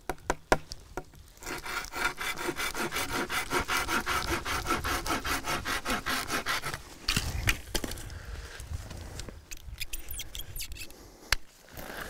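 Hand saw cutting through a live pine branch overhead, with fast even back-and-forth strokes, about five a second, for around five seconds. After the strokes come a few louder knocks and some rustling.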